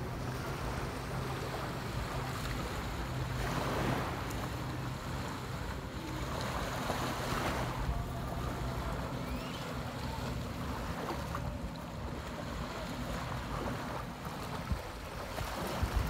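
Sea surf washing onto a beach, swelling about four and seven seconds in, with wind buffeting the microphone. A faint low steady hum runs under it for the first part.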